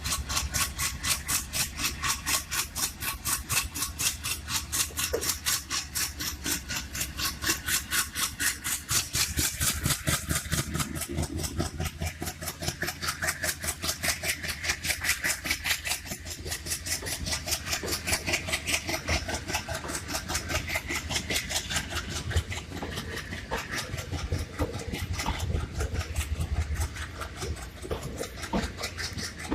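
Express train running through the station without stopping: a fast, even clatter of wheels over the rails with a low rumble underneath, easing somewhat in the last third.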